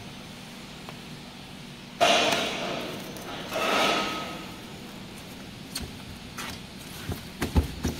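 Plastic stretch wrap film being pulled off a pallet wrapper's film carriage and torn by hand. Two loud crinkling rips come about two and three and a half seconds in, then a few sharp thumps near the end, over a steady low hum.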